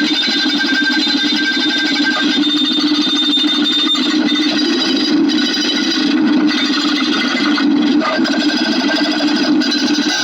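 Dense, rapid clicking that runs together into a steady, loud crackling texture.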